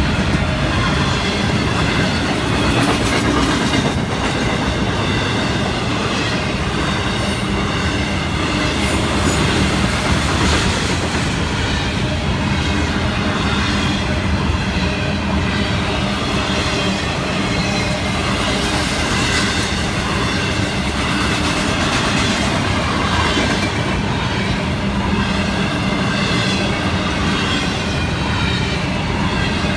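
Florida East Coast Railway intermodal freight cars, double-stack container wells and trailer flatcars, rolling past at steady speed: a continuous, even rumble of steel wheels on the rails.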